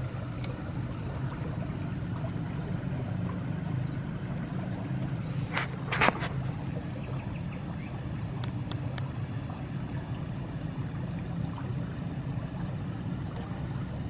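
A steady low rumble of outdoor background noise, with a short, loud burst of noise about six seconds in.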